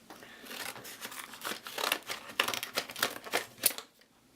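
Correction tape packaging being worked open by hand, with irregular crinkling and crackling that stops shortly before the end.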